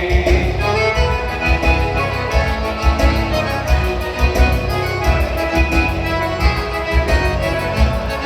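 Instrumental music with accordion and a steady bass beat, in the style of Brazilian country dance music.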